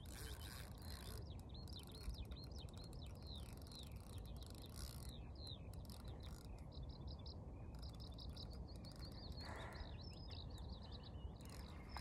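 Small birds singing: many quick chirping notes repeated throughout, over a low steady rumble, with a short hiss about nine and a half seconds in.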